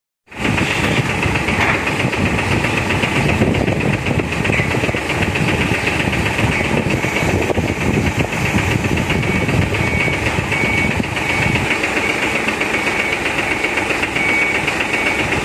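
Toyota 1.5-tonne forklift's engine running steadily as it manoeuvres at a lorry's side. A reversing alarm sounds at times in short, evenly spaced high beeps, about three a second.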